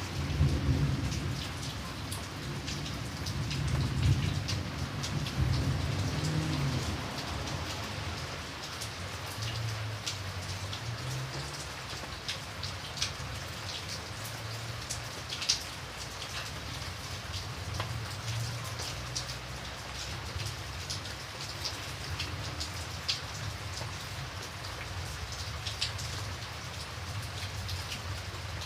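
Steady rain with individual drops clicking sharply on a hard surface. A low rumble of thunder sounds in the first several seconds and then dies away.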